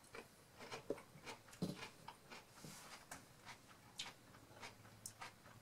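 A person chewing a bite of crunchy dill pickle: faint, irregular crisp crunches and wet mouth clicks, a few a second.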